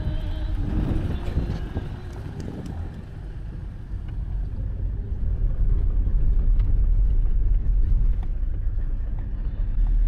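Ford-based motorhome driving slowly through town, heard from inside the cab: a steady low engine and road rumble, rougher over cobblestones at first and getting louder about halfway through.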